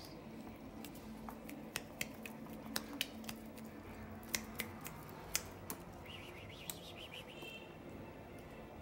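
A run of irregular sharp clicks and ticks, with a faint high chirping sound about two-thirds of the way through.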